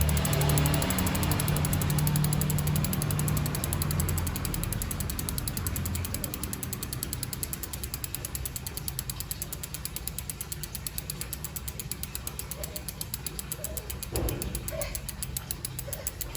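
Odessy 'jangkrik' road-bike freehub clicking rapidly as the wheel freewheels, its pawls making a fast, loud ratcheting buzz. The buzz fades steadily as the wheel spins down. There is a brief knock about fourteen seconds in.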